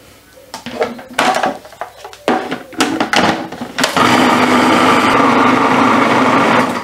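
Hard plastic clicks and knocks as a food processor's lid and feed tube are fitted back on. About four seconds in, the food processor's motor starts, its blade grinding roasted sunflower seeds that are turning into seed butter with a loud, steady whir, and it stops suddenly at the very end.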